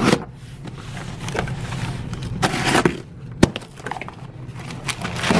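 A utility knife cutting the packing tape on a cardboard shipping box, then the cardboard flaps pulled open and crumpled kraft packing paper rustling, with scattered knocks and a sharp click about three and a half seconds in.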